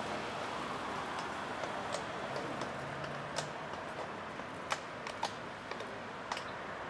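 Steady hum of city traffic, with a few sharp, irregular clicks in the second half.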